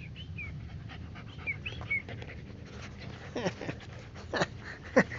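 Siberian huskies play-fighting: a few faint high squeaks, then from about three seconds in a run of short yips and barks, each dropping quickly in pitch, coming louder toward the end.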